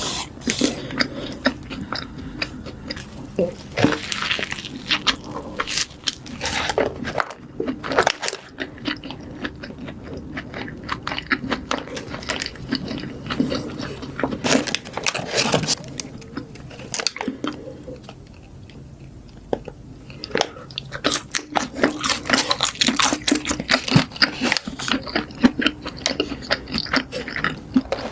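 A person biting and chewing fast food, with crunchy, crackling bites and steady chewing, easing off briefly about two-thirds of the way through.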